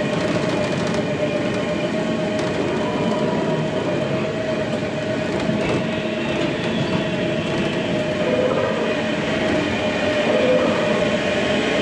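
Steady rumble of a moving vehicle, with a constant mid-pitched hum running through it.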